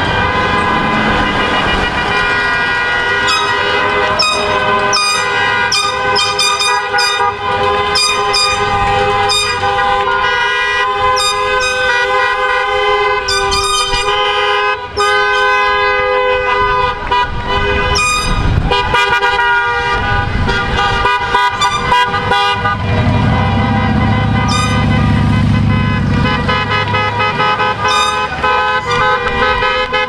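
Many car horns honking at once, several held and overlapping tones at different pitches sounding without a break, as a line of cars drives past. A low vehicle rumble swells for a few seconds about two-thirds of the way through.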